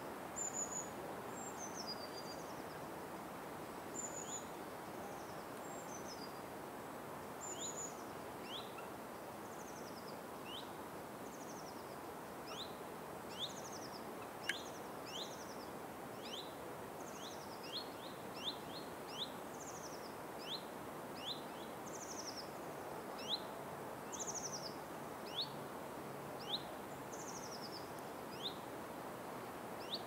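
Birds calling with many short, sharp, falling chirps, about one every second or so and more frequent in the second half, over a steady background hiss.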